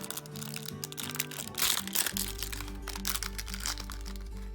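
Background music with steady notes, a bass line and a repeating note coming in about two seconds in. Over the first half, the plastic wrapping of an L.O.L. Surprise packet crinkles as it is torn open.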